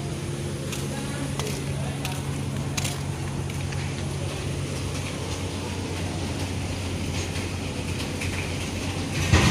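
Diesel truck engine idling with a steady low hum, its tone shifting slightly about halfway through. A short loud knock near the end.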